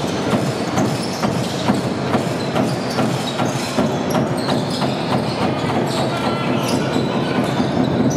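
Basketball being bounced on a hardwood court, irregular knocks over the steady noise of an arena crowd.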